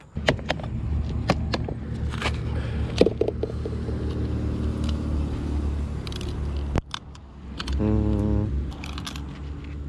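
Hard plastic lures and the compartments of a plastic tackle box clicking and rattling as a hand picks through them, with many short sharp taps over a steady low rumble. A brief wavering tone sounds about eight seconds in.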